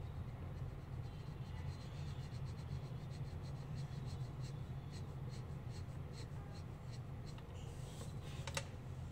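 Water-colour marker tip scratching on paper in quick short strokes while colouring in, over a steady low hum. One sharp click comes near the end.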